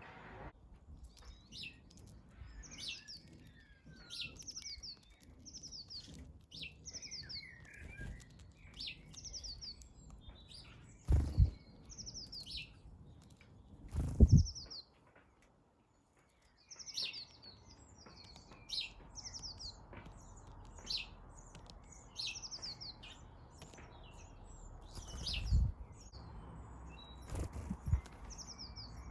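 Small garden birds chirping over and over in short high calls, about one a second. A few dull thumps stand out as the loudest sounds, twice near the middle and twice near the end.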